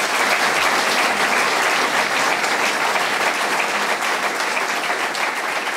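Audience applauding steadily after a speech, a dense even patter of many hands clapping.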